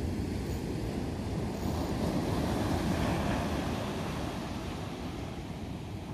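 Ocean surf washing onto a beach, with wind buffeting the microphone. The roar swells about two to three seconds in, then eases off.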